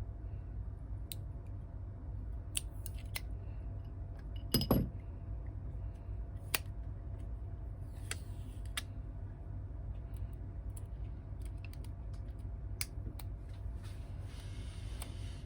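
Light, scattered clicks and taps of small repair tools and phone parts being handled at a workbench, with one louder knock about four and a half seconds in, over a steady low hum.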